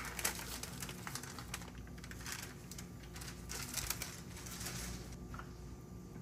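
Quick, irregular crackling ticks in clusters, mixed with the rustle of parchment paper, as almond-flour flatbread dough is pressed onto a hot griddle and the paper is peeled away. The crackling dies down about five seconds in.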